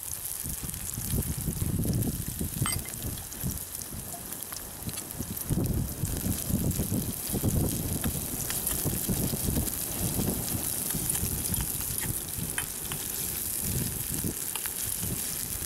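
Sliced onions and green chillies frying in oil in a kadai, with a steady sizzle and a few sharp clicks of the metal spoon against the pan as they are stirred. An irregular low rumble runs beneath.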